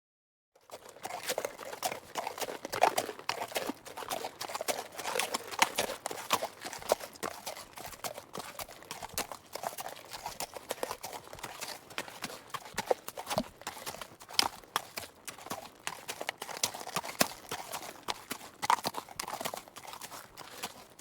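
Horse hooves clip-clopping, a quick, irregular run of sharp knocks that starts about half a second in after a moment of dead silence.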